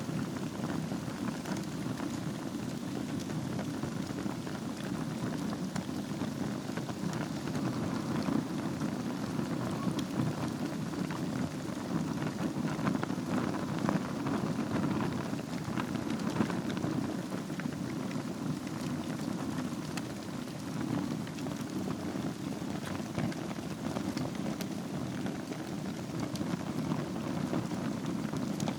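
Wood fire burning in a fireplace over a bed of embers: a steady low rush with many small crackles and pops scattered through it.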